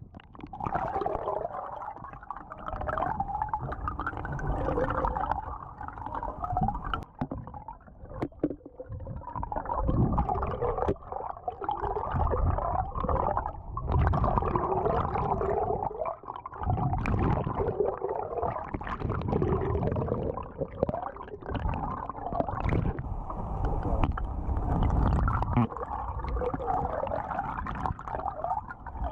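Muffled sloshing, gurgling and low rumbling of seawater around a camera held just under the surface.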